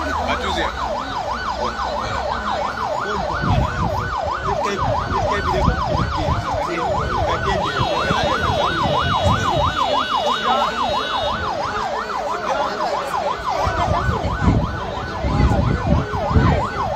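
Emergency vehicle siren in a fast yelp, its pitch rising and falling about three to four times a second without a break. A second, steady high tone sounds over it for a few seconds in the middle.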